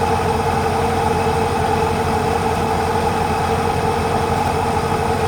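Engine of a rice combine harvester running steadily at an even speed, with a constant low drone.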